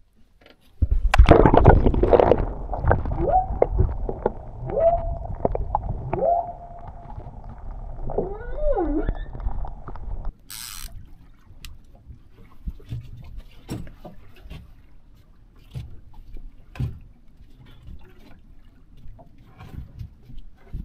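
Water heard through a submerged camera: muffled rushing and gurgling, with a few whine-like tones that rise and fall. About ten seconds in it cuts off abruptly to quieter open-air water sounds with scattered light knocks.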